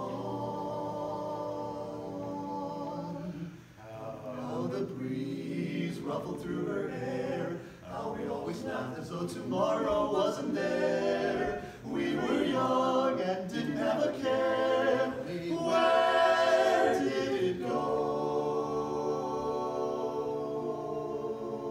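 Men's barbershop quartet singing a cappella in four-part close harmony: sustained chords in phrases with brief breaks between them, growing louder through the middle and settling onto a long held chord near the end.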